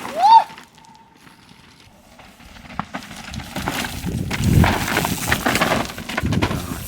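Mountain bike clattering over rocks as it comes past, building from about two and a half seconds in into a dense rattle of tyre, chain and frame knocks on stone, loudest in the second half.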